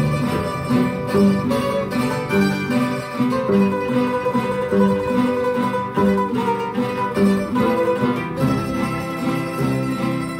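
Filipino rondalla ensemble playing a slow melody: two bandurrias carrying the tune over an octavina, a guitar and a double bass.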